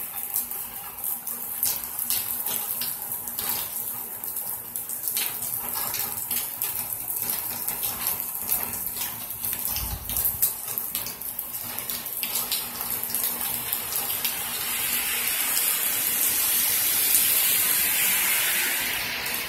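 Steady rain falling, with scattered close drops ticking. Near the end a car passes on the wet road, its tyre hiss swelling and fading.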